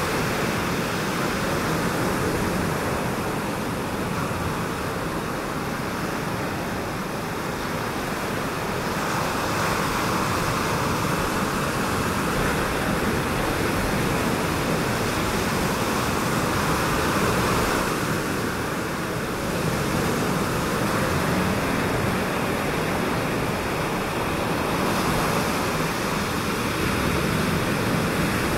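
Ocean surf: a steady wash of breaking waves that swells and eases every several seconds.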